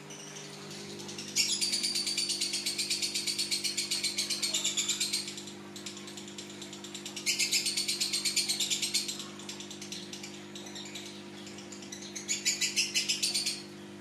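Caged lovebird giving its long, rapid chattering song, the trill keepers call ngekek, in three bouts: a long one of nearly four seconds starting about a second and a half in, a shorter one of about two seconds in the middle, and a brief one near the end.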